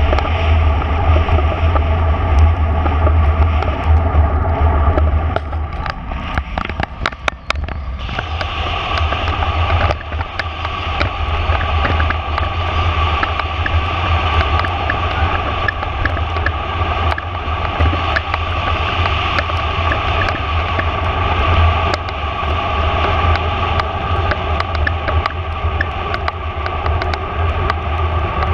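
Wind buffeting the microphone over steady road noise from riding, with a short quieter patch and a few clicks about six to eight seconds in.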